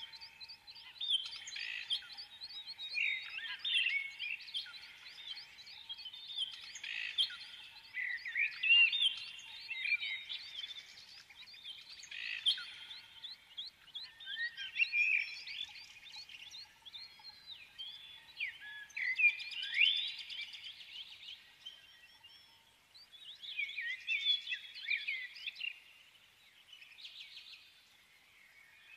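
Many birds chirping and twittering in a dense chorus of quick rising and falling calls, with louder bursts every second or two.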